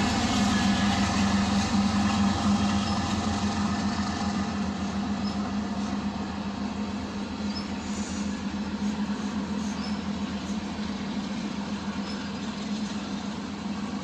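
CPKC freight train rolling past: a steady low hum and a dense rumble of rolling cars that slowly fade, with a few faint high wheel squeaks in the second half.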